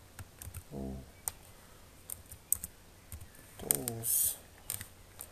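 Computer keyboard typing: scattered, uneven key clicks as a line of code is entered. A short low vocal sound comes about a second in and another near the four-second mark.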